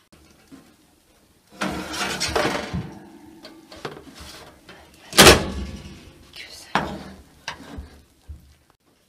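Oven door and a large round metal baking pan being handled as the pan comes out of the oven, with a loud clank about five seconds in and a few lighter knocks after it.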